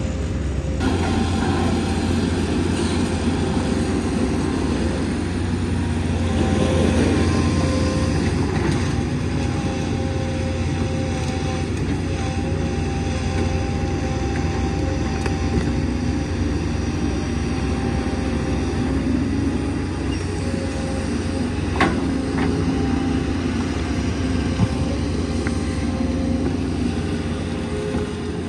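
A large engine running steadily with a low rumble, typical of heavy machinery or traffic at a road and bridge construction site. There is a single sharp knock about 22 seconds in.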